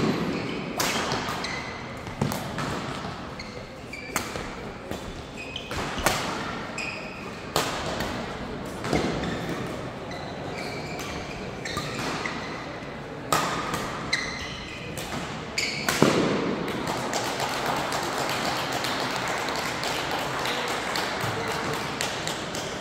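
Badminton racquets striking a shuttlecock back and forth in a doubles rally, a sharp crack every second or two, with court shoes squeaking on the sports floor between shots. The hardest hit comes about two-thirds of the way through, after which the rally ends and a few seconds of denser hall noise follow.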